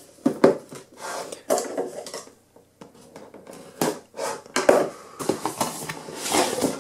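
Cardboard product box being handled: a string of knocks and scrapes as it is turned over and set down on a table, then a rustling slide near the end as its lid is opened.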